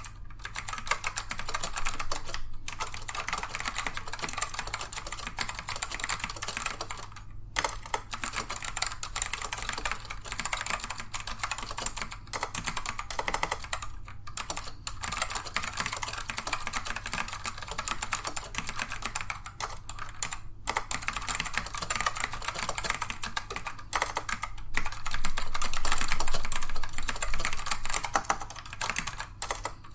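Rapid, continuous typing on a Dell AT102W mechanical keyboard with black Alps switches, which are tactile but not clicky. The keystrokes come densely, with a few brief pauses, and grow louder for a couple of seconds near the end.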